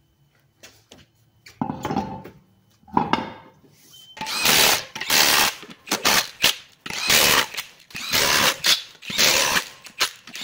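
Cordless impact wrench running lug nuts onto a wheel's studs. A few short spins come first, then from about four seconds in a string of loud hammering bursts, roughly one a second, as each nut is tightened down.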